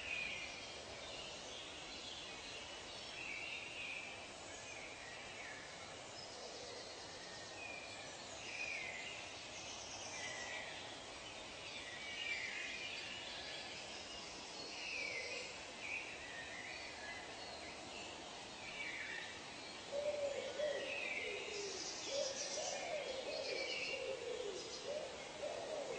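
Forest soundscape of many birds calling: short chirps and whistles overlap throughout over a steady background hiss. About 20 seconds in, a lower run of calls joins in and is the loudest part.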